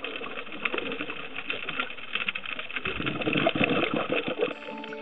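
Underwater ambience picked up by a diving camera: a steady, dense crackle of fine clicks, growing rougher about halfway through. Guitar music comes in near the end.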